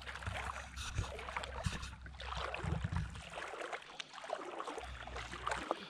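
Water lapping and trickling around a kayak, with scattered small knocks against the hull and a low rumble that drops out for about a second midway.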